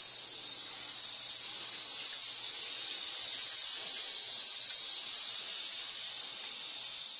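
Steady high-pitched hiss, unchanging throughout, with a faint low hum beneath it.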